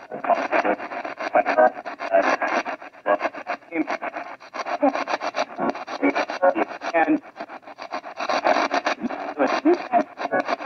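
Spirit box, a modified radio sweeping rapidly through stations, giving a choppy stream of static and clipped fragments of broadcast sound. The operator takes the fragments for spirit replies.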